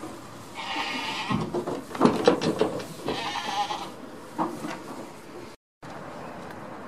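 Goat bleating twice, two hoarse calls about two seconds apart, with a clatter of sharp knocks on wood between them.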